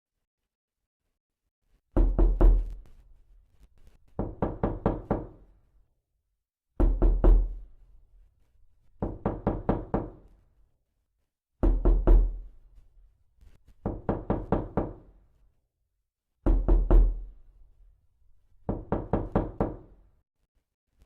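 Knocking in quick bursts of about five or six raps. A loud burst is followed about two seconds later by a softer one, and the pair repeats four times as an even loop.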